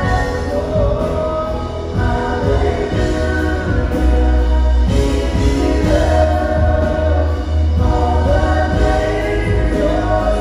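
Church worship band playing live, a drum kit under a group of voices singing the melody.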